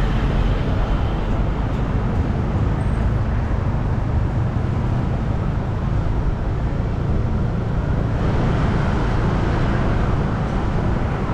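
Steady road traffic and vehicle rumble from a drive through city streets, with no voices. The hiss grows louder for a few seconds near the end.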